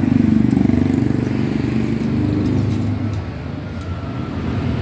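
An engine idling steadily, with a low, even running sound.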